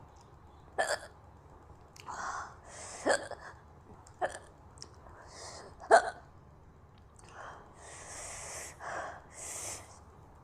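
A woman hiccupping: four sharp hiccups over the first six seconds, the last the loudest, with short breathy hissing sounds in between and after them.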